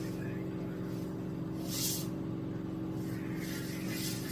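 Steady mechanical hum with a short hiss just under two seconds in and a longer hiss starting near the end.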